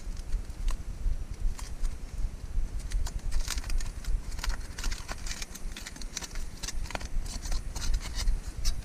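Aluminium foil crinkling as a wrapped homemade fuel tablet is unwrapped by hand: scattered crackles at first, then a dense run of them from about three seconds in.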